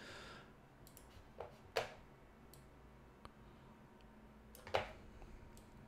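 A few scattered clicks of a computer mouse, faint against low room noise.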